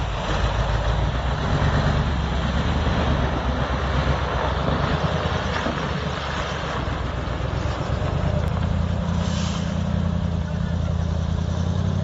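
Heavy diesel dump truck loaded with rocks running and pulling away, its engine a steady low hum under an even rush of noise.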